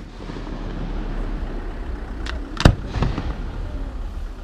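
Aerial firework shells exploding: a faint pop a little over two seconds in, then one sharp, loud bang with a short rumbling tail after it, over a steady low background noise.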